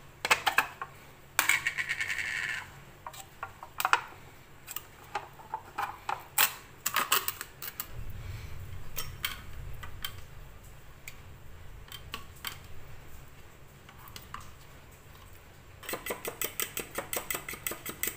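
A spoon clinking against a bowl now and then while yogurt is added to ground mint-and-coriander paste. Near the end it turns to quick stirring, a fast even run of clinks, as the yogurt chutney is mixed.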